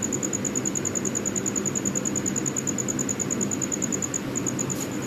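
High-pitched insect chirping in a fast steady pulse, about ten chirps a second, over a steady low hum.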